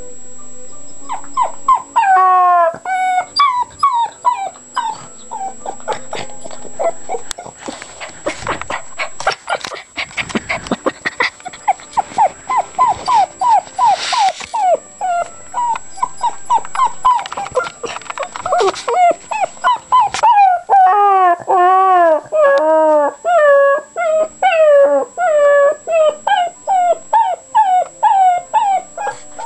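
Puppy whimpering and whining in a long run of short, high, arching cries, about two or three a second, with a few seconds of scuffling clicks partway through.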